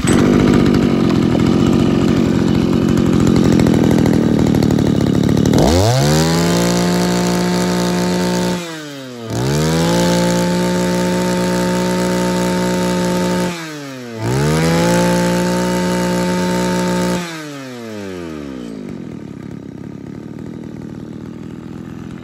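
Mitsubishi TL231 brush cutter's small two-stroke engine running roughly for about five seconds, then revved to full throttle three times, each held for three to four seconds with short dips between, before dropping back to a steady idle: a test run of the engine.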